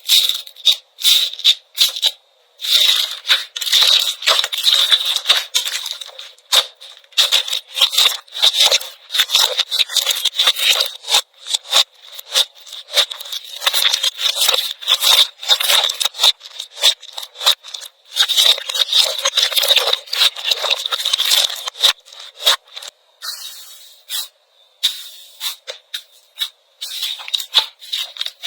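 Slime being squeezed, poked and stretched by hand, giving a rapid, almost unbroken stream of sticky clicks, crackles and small pops, with a few short pauses as the clips change.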